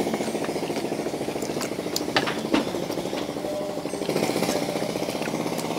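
A small engine running steadily with a fast, even pulsing, and a couple of sharp clinks of utensils on plates a little after two seconds in.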